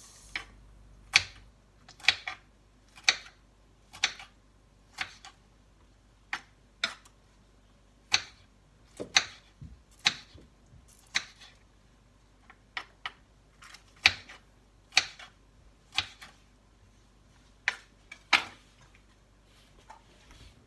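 Kitchen knife chopping a tomato on a bamboo cutting board: sharp knocks of the blade striking the board, roughly one a second and uneven, some in quick pairs, stopping near the end.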